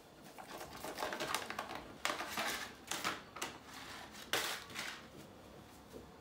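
Plastic snack packets rustling and crinkling in bursts as a Siamese cat paws and tugs at them on a cupboard shelf and pulls one out onto the floor, with the loudest crackles about two seconds in and again about four seconds in.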